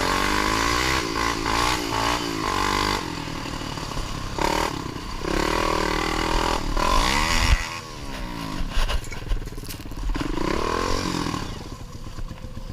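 ATV engine running along a trail, its pitch rising and falling repeatedly as the throttle is opened and eased off, and fading lower near the end.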